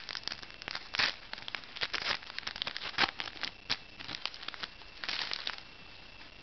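A Magic: The Gathering booster pack's wrapper crinkling and tearing as it is opened, with irregular crackles and two longer rips, about one second and about five seconds in.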